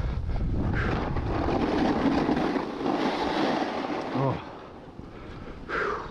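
Strong wind rushing and buffeting the microphone, which eases after about four seconds, with a short exclamation.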